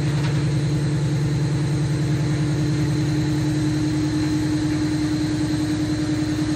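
Industrial wire-processing machine running steadily, a low hum with a fast, even pulse, and a steady tone that comes through more clearly about halfway through.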